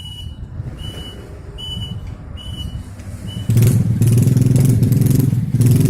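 Short high beeps repeat about every 0.8 s over a low hum. About three and a half seconds in, a small engine comes in abruptly and runs loud to the end.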